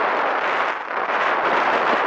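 Strong wind and rain making a loud, steady rushing noise on the microphone, with small dips in level.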